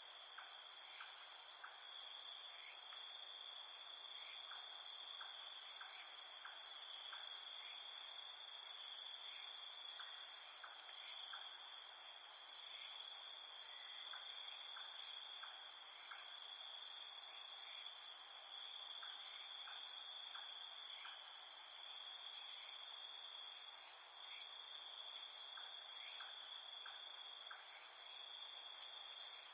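A steady chorus of crickets: continuous high-pitched trilling that never breaks, with faint quick ticks coming in small clusters every few seconds.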